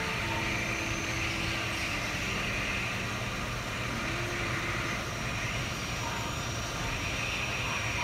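Hot-air rework station blowing steadily, an even airy hiss with a low hum underneath, while it heats a small chip on a laptop motherboard.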